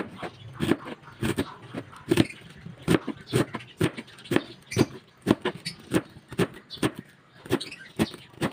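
Kitchen knife chopping napa cabbage on a plastic cutting board: steady, sharp chops about two a second.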